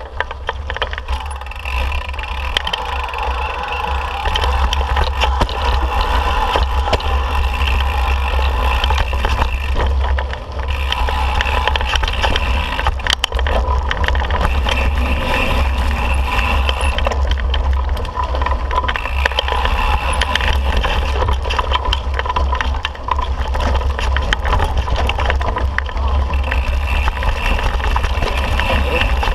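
Mountain bike being ridden along a dirt and rock trail, heard from a camera riding with it: a steady wind rumble on the microphone over tyre and trail noise, with scattered clicks and rattles over bumps.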